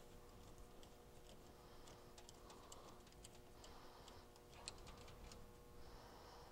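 Near silence with faint, irregular small clicks and ticks of a screwdriver and wire ends working at the terminal block of a metal junction box.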